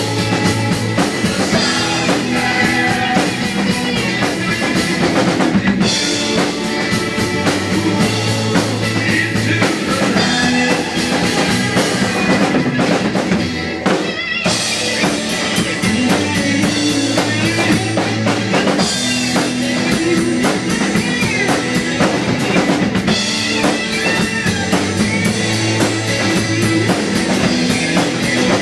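Acoustic drum kit played live along to a rock recording: a full beat of kick, snare and cymbals over the song's bass and electric guitar, with a short drop in loudness about halfway through.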